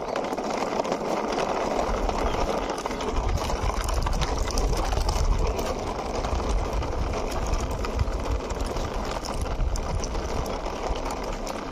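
Plastic toy car rolled by hand over rough concrete: a steady gritty whirring of the wheels on the stone, with many small ticks and a low rumble underneath.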